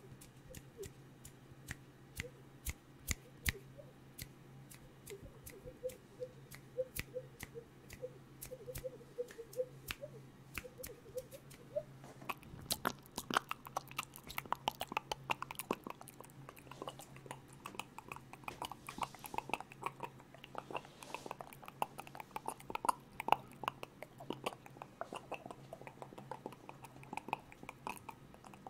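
Mouth sounds made right at a microphone: a run of quick clicks with small chirp-like notes, changing about twelve seconds in to denser, higher clicking and smacking.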